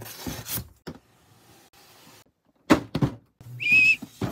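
Cardboard model-kit boxes being handled and packed into a shipping carton: scraping and rustling, two sharp knocks a little before three seconds in, and a short high squeak near the end.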